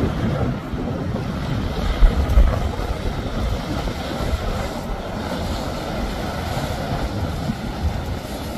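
Large motor yacht running at speed: a steady low drone mixed with the rush of its wake spray, and wind buffeting the microphone, with one louder gust thump about two seconds in.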